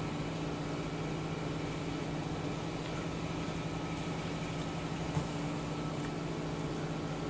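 Steady low hum throughout, with a few faint clicks of chopsticks against a bowl as food is picked up; the clearest is a soft knock about five seconds in.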